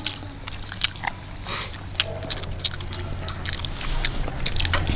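Close-up eating sounds: chewing and biting into fried fish-ball skewers, with irregular small clicks and crackles as tissue paper is handled around the skewers. A steady low hum runs underneath.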